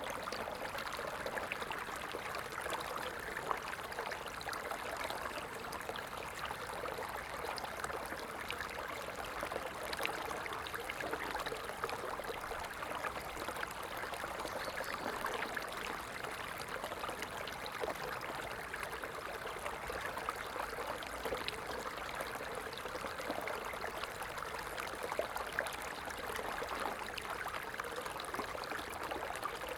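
A small stream running steadily over stones, a constant babbling and trickling of water.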